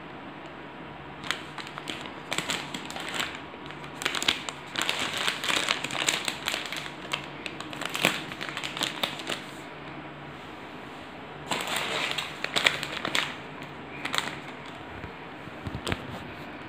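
Plastic wrapper of a pack of sanitary napkins crinkling as it is handled and turned in the hands, in irregular spells with short pauses between, the longest through the middle.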